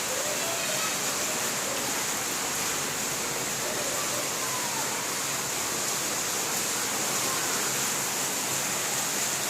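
Steady rain falling, an even unbroken hiss, with a few faint short whistle-like tones now and then.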